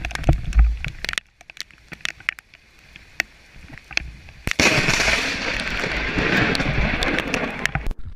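Close lightning strike: a sudden sharp thunder crack about four and a half seconds in, then a few seconds of loud crackling that cuts off abruptly near the end. Before it, scattered clicks and a brief low rumble.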